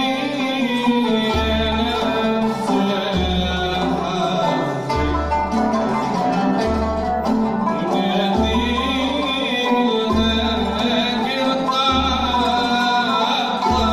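Live Arab takht ensemble playing together: violin, qanun, oud and a frame drum, with plucked and bowed melody lines over a steady drum rhythm.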